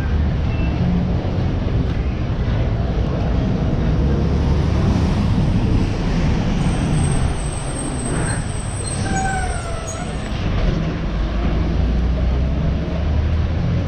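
City street traffic: a steady low rumble of passing engines, with a thin high squeal lasting a few seconds partway through.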